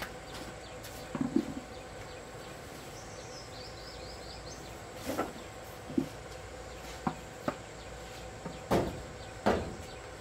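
Scattered knocks and thumps from a metal bucket and a sack being handled on a concrete floor, over a steady background drone. A quick run of chirps about 3 seconds in.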